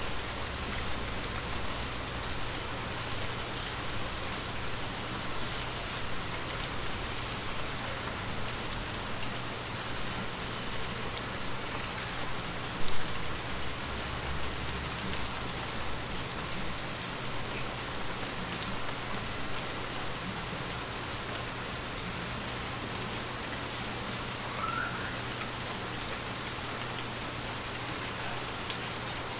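Steady rain: a dense, even hiss of many drops falling on surfaces, with one brief louder hit near the middle.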